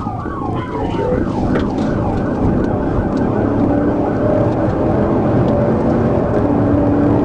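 Police car siren yelping in fast up-and-down sweeps for the first couple of seconds, then giving way to steady engine and road noise of the car speeding in pursuit, growing slightly louder toward the end.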